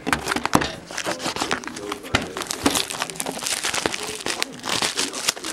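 Plastic shrink-wrap being torn and peeled by hand off a cardboard box of trading cards: a dense run of crinkling and crackling.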